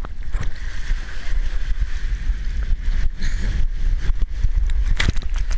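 Wind buffeting the microphone in a loud, steady low rumble, with rushing water and a few clicks and knocks, as of a rider sliding down a mat water slide.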